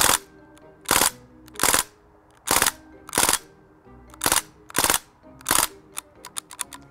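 Crosman DPMS SBR CO2 BB rifle shooting single sharp pops, about eight of them spaced well under a second to a second apart, then a quicker run of fainter clicks near the end.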